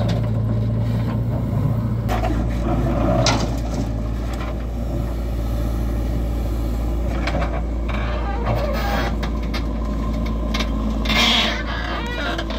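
Diesel engines of a JCB 3DX backhoe loader and a John Deere 5310 tractor running with a steady low hum while the backhoe digs and loads soil. A couple of brief louder rushes of noise rise over it, about three seconds in and again near the end.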